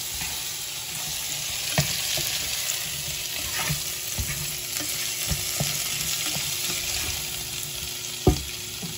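Diced potatoes, red bell pepper and chopped tomato sizzling in a nonstick frying pan while being stirred with a slotted spatula, which scrapes and taps against the pan now and then; the sharpest tap comes near the end.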